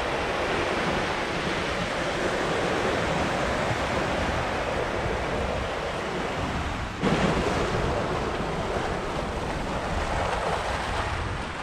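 Sea surf washing onto the beach with wind buffeting the microphone, a steady rushing noise that changes abruptly about seven seconds in.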